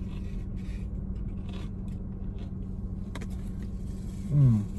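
Steady low hum inside a car's cabin from the idling engine and air conditioning, with a few faint clicks. Near the end a man gives a short falling 'mm' hum.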